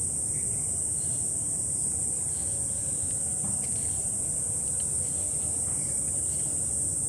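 Night-time insect chorus, crickets trilling in one steady, unbroken high-pitched buzz, over a low rumble of background noise.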